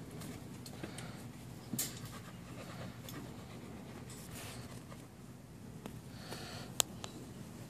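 A bully-breed dog panting with its mouth open, with a single sharp click near the end.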